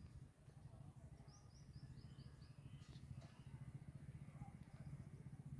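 Near silence with a faint low rumble; a little over a second in, a small bird gives a quick run of about six short, high, falling chirps.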